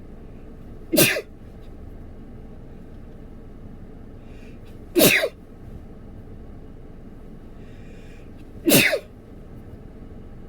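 A man sneezing loudly three times, about four seconds apart, each sneeze a short explosive burst; the sneezes are brought on by chhinkni snuff.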